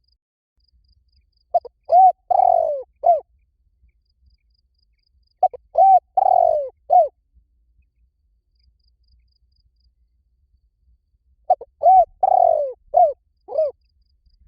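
Spotted dove cooing: three phrases of several short coos each, with a few seconds' pause between phrases.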